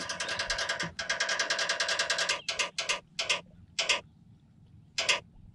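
Phone spinner-wheel app ticking as the wheel spins: a fast run of clicks that slows to a handful of separate ticks and stops, the last about five seconds in.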